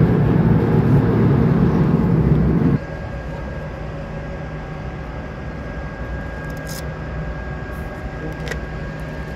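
Cargo ship's deck crane machinery running steadily as it holds a tween-deck panel aloft: a loud low rumble that drops suddenly about three seconds in to a quieter steady hum with a thin high whine.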